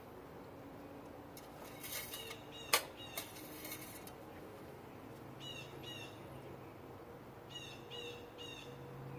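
A bird chirping faintly in short, falling calls, in quick groups of two or three that repeat several times, with a single sharp click a little under three seconds in.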